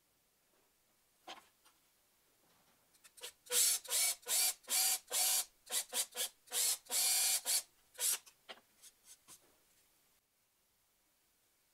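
Cordless drill with a countersink bit boring into plywood through a depth-stop jig, run in about a dozen short trigger bursts over about five seconds, starting about three seconds in. A small knock comes before the drilling, and a few light ticks follow it.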